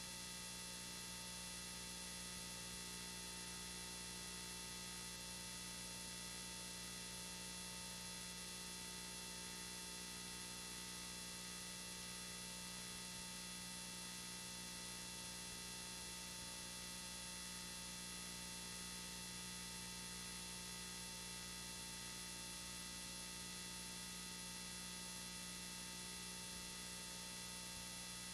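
Steady electrical hum and buzz with many overtones over faint hiss, unchanging throughout: an audio fault in an old home-video recording, with no other sound.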